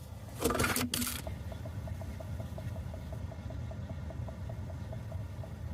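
Faint, even ticking about five times a second over a steady low hum: the newly fitted Ford Flex HVAC blend door actuator motor driving the blend door. A short rustling noise comes about half a second in.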